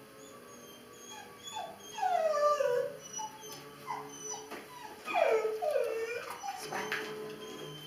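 Young dog whining in a series of high whimpers that slide downward in pitch, loudest about two seconds in and again about five seconds in, with a few sharp clicks between them.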